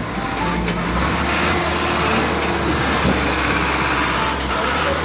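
A large truck's engine running steadily close by, under a loud, even rushing noise.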